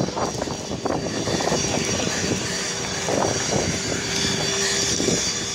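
Small aircraft's engines running on the ground, a steady loud drone with a constant high whine.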